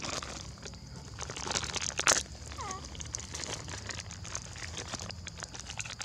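Crackling and rustling of dry leaves and ground litter, with scattered small crackles and a sharper one about two seconds in. A faint short squeak follows shortly after.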